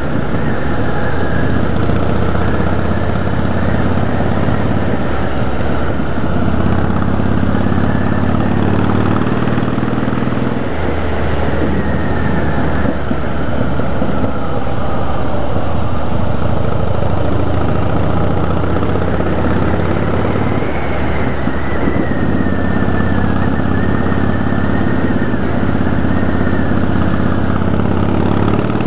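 Harley-Davidson V-twin motorcycle engine running steadily under way, heard from the rider's seat; the engine note drops and picks up again a couple of times as the throttle changes through the bends.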